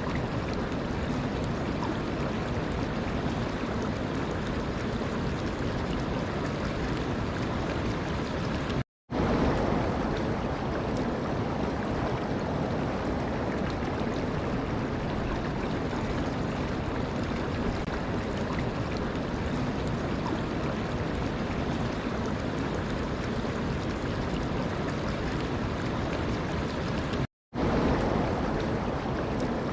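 Steady rushing of running water, a continuous even wash of noise. It cuts out completely twice for a split second, about nine seconds in and near the end.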